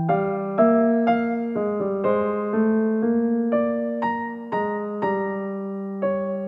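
Background piano music: a calm melody of evenly paced notes, about two a second, over held lower notes.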